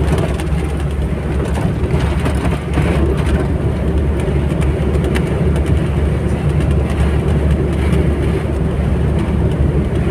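Steady road and engine rumble of a vehicle cruising on a highway, heard from inside the cabin.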